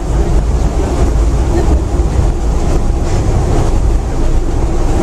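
Moscow monorail train running, heard from inside the car: a steady, loud low rumble that stays even throughout.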